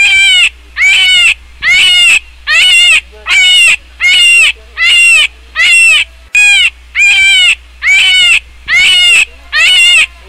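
A loud, high-pitched animal call repeated at an even pace, about once every 0.8 s, each call the same short, arching cry, over a steady low hum.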